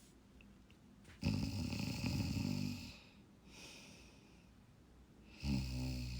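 A person snoring through the nose with the mouth taped shut. There are two snores, the first about a second in and lasting nearly two seconds, the second starting near the end, with a fainter breath between them.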